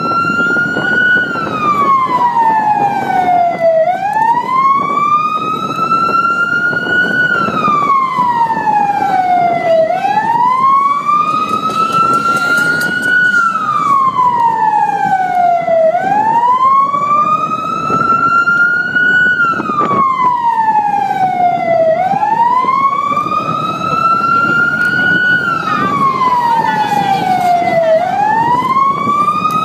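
Vehicle siren sounding a slow wail: it rises over about three seconds, falls over about two and a half, and repeats about every six seconds. Steady engine and road noise sits underneath.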